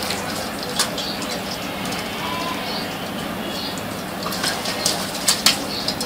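Pet parakeets bathing in a water bowl: wing flutters and water splashes, sharpest in a cluster about two-thirds of the way through, with a few short bird calls over a steady background hiss.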